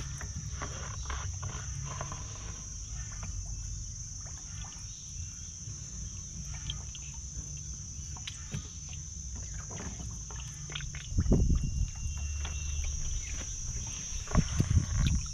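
Insects droning steadily at a high pitch, over a low rumble, with a few faint clicks and louder low bursts about eleven and fourteen seconds in.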